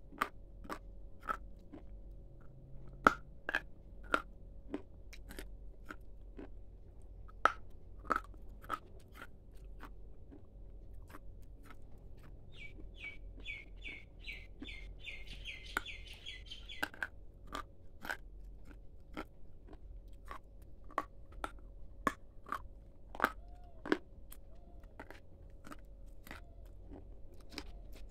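Close-up crunching and chewing of a hard, dry brown stick snack: sharp, irregular crunches, often about half a second apart. About halfway through, a bird chirps a quick run of high notes for a few seconds.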